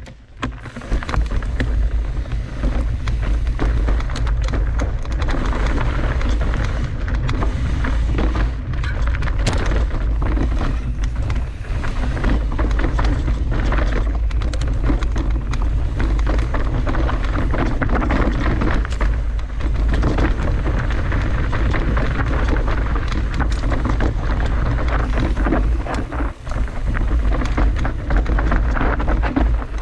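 Bubble wrap popping in a dense, continuous crackle of many small pops, over a steady low rumble.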